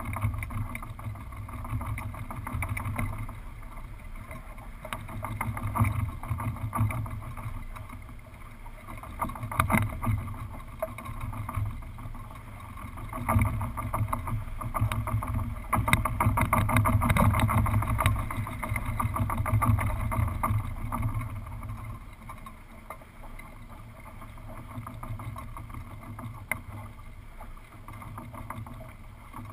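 Wind rumbling over the microphone of a mast-mounted camera on a small sailboat under sail, swelling and easing in gusts and loudest about halfway through, with scattered clicks and rattles.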